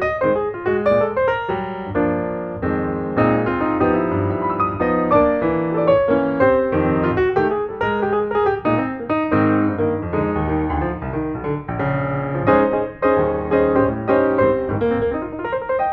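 Background music led by piano, with many quick notes and chords.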